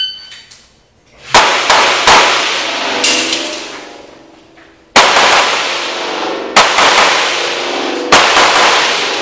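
A shot timer's start beep, then handgun shots in quick strings of two or three, each ringing off the concrete walls of an indoor range. After the first string there is a pause of about three seconds while the shooter moves, then more strings follow.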